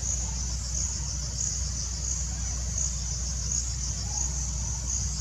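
A chorus of insects trilling high and pulsing about three times every two seconds, over a steady low rumble.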